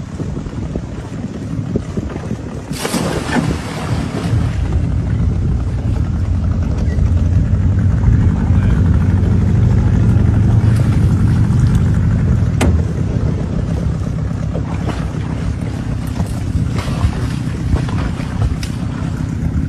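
Boat engine running steadily, its low rumble building a few seconds in, with wind buffeting the microphone and a couple of sharp knocks.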